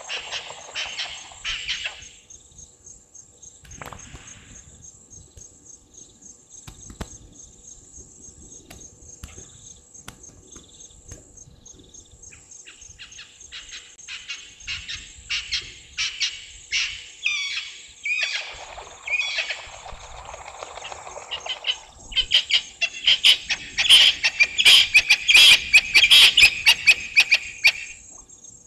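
Waterbirds calling: runs of quick, sharp, repeated calls that build to a dense, loud series in the last several seconds. A steady high insect trill runs beneath.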